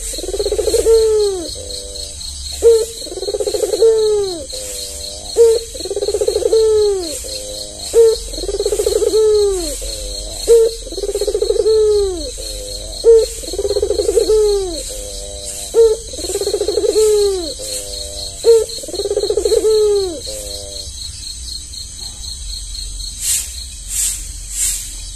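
White albino puter dove cooing over and over, each coo a short note followed by a longer rolling coo, about one every two and a half seconds, stopping about three-quarters of the way through. Insects chirr steadily and high behind it, and a few sharp clicks sound near the end.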